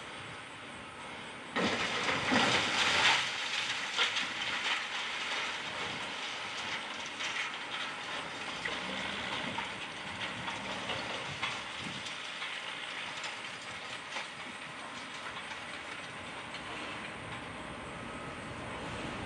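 A sudden crash about a second and a half in as a wrecking ball knocks into a brick-and-concrete building. It is followed by a long crackling clatter of debris breaking off and falling, which slowly dies down.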